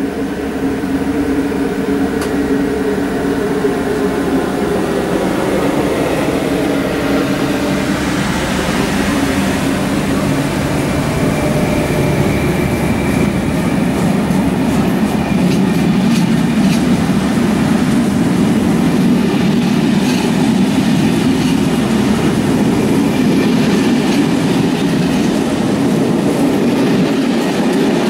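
Electric locomotive-hauled passenger train of SNCF Corail coaches passing close by: a steady hum for the first few seconds, then the continuous rush and rolling clatter of the coaches' wheels on the rails, growing louder in the second half.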